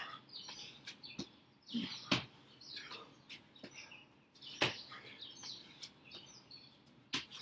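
Small birds chirping again and again in short calls. Sharp thuds land about every two and a half seconds as burpees are done on a brick patio.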